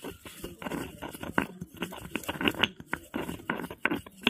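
Stone pestle grinding rose petals in a new stone mortar: gritty crunching and stone-on-stone scraping in a quick, uneven run of strokes. This is a first seasoning step that breaks in the mortar's surface.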